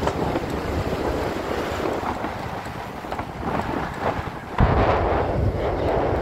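Wind buffeting the microphone of a camera on the move, a steady rushing noise that turns suddenly louder and deeper about two-thirds of the way through.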